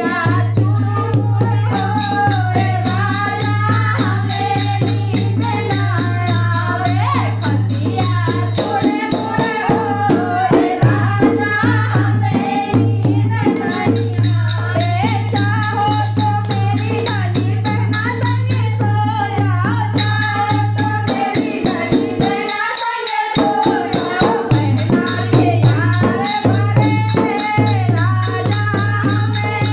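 Hindi folk song: a voice singing a melody over rattling percussion and a steady low drone, which drops out briefly about two-thirds of the way through.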